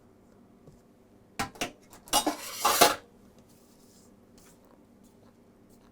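Kitchen utensil knocking twice against a mixing bowl, then about a second of loud scraping and clatter against the bowl.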